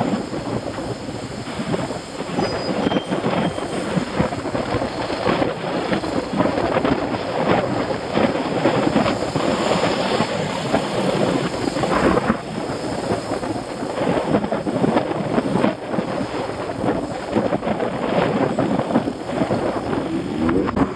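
Wind buffeting the microphone of a camera carried on a moving bicycle: a loud, unsteady rush of noise with no pitch.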